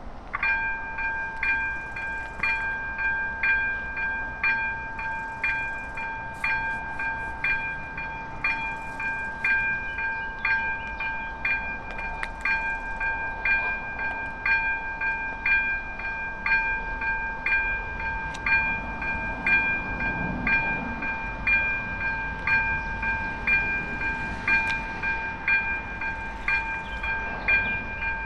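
ZV-02 level-crossing warning bell starting about half a second in and ringing a steady ding about once a second: the crossing has activated to warn of an approaching train.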